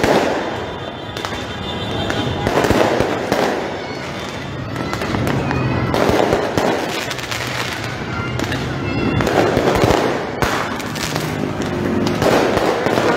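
Aerial fireworks going off in quick succession: many overlapping bangs and crackles, one after another with no break, over a general street din.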